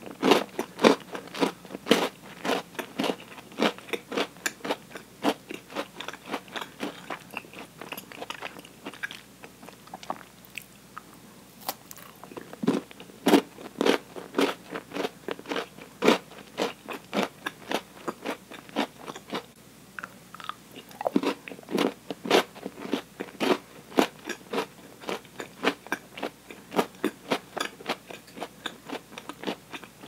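Chewing and crunching a thick milk chocolate bar with Oreo cookie filling, close to a clip-on microphone: a quick run of crisp crunches and mouth clicks, a few a second, thicker near the start and again about two-thirds of the way through.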